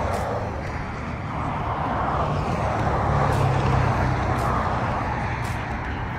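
A motor vehicle running close by: a steady rumble and hiss that swells a little about three seconds in.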